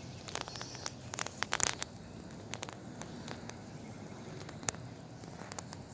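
A tabby kitten crunching dry cat food: irregular crisp clicks, thickest in the first couple of seconds, then a few scattered ticks.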